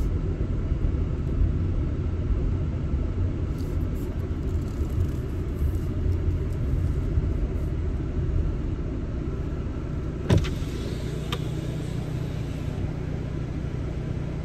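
Car running at low speed, heard from inside the cabin: a steady low rumble of engine and road noise, with a single sharp thump about ten seconds in.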